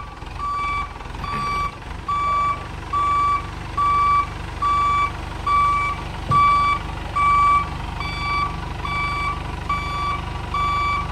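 Forklift reversing alarm beeping evenly, a little under one beep a second, over the forklift's running engine, with one light knock about six seconds in.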